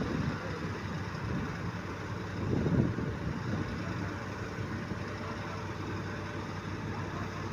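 Heavy diesel engine of earthmoving machinery running steadily, with a brief swell in level about two and a half seconds in.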